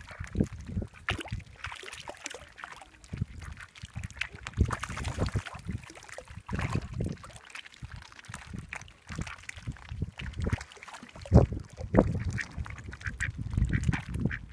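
Ducks quacking repeatedly, in short irregular calls.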